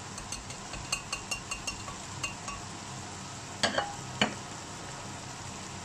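Light, faintly ringing clinks of a hand blender's shaft stirring and tapping against a glass pitcher of freshly ground sesame paste, several a second for about two seconds. Then two sharper knocks as the blender is set down, over a faint steady sizzle from the pan of browned pork.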